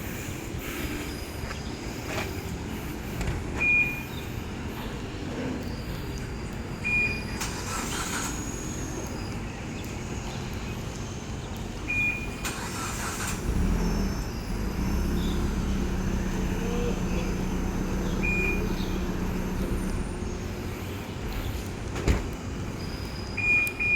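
A Proton Saga's aftermarket smart alarm gives short high beeps every few seconds. About halfway through, the car's engine starts with a low thump and runs steadily for several seconds before it stops.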